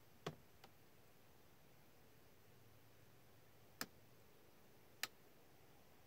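Near silence broken by three short, sharp clicks: one about a quarter second in, one near the four-second mark and one about a second later.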